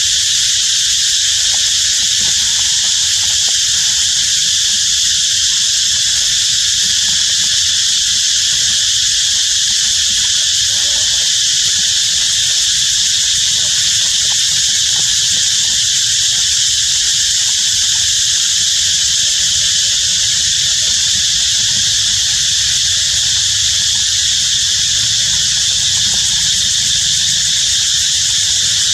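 Loud, steady chorus of insects, a shrill, unbroken drone that does not change for the whole stretch.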